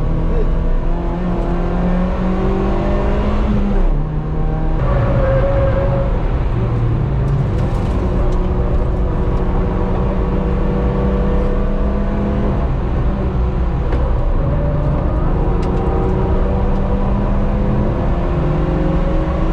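Turbocharged car engine heard from inside the car at speed on a race circuit, its note stepping up and down with throttle and gear changes, with a brief dip about four seconds in.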